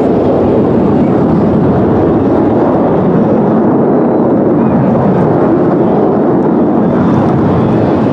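Loud, steady aircraft engine noise, a rushing roar with no distinct tones and no break.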